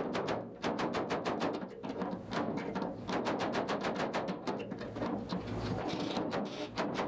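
Slide-hammer dent puller worked in fast short strokes, its weight slamming against the stop in a rapid run of sharp metallic clacks, several a second. It is pulling on pins fixed to a steel body panel to draw out a stubborn dent that hardly moves.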